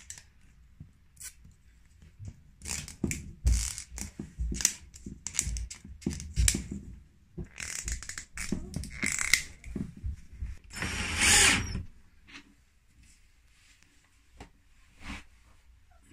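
Plastic fittings being handled and clipped onto the rim of a metal mesh basket: a quick run of clicks, knocks and rattles, then a scraping rasp lasting about a second, about eleven seconds in, and a few scattered clicks after it.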